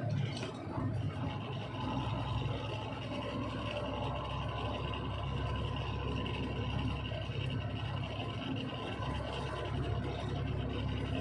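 Truck engine running with a steady low hum.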